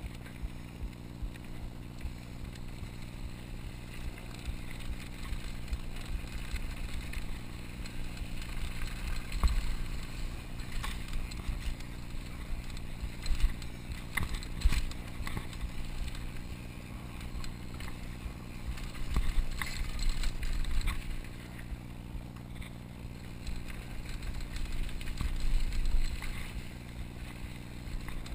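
Mountain bike descending a dirt singletrack: a steady rumble of wind and tyres on dirt, with the bike's frame and chain rattling and knocking over bumps. It grows louder in several rough stretches.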